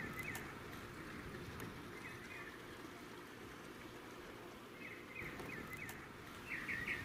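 Faint outdoor backyard ambience with small birds chirping in short clusters of quick notes every second or two, the chirping growing louder near the end.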